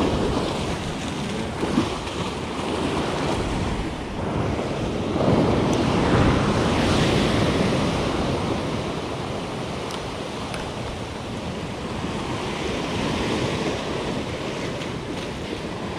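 Ocean swell surging and washing over a rock ledge in white foam, with wind buffeting the microphone. One surge builds and is loudest about five to seven seconds in.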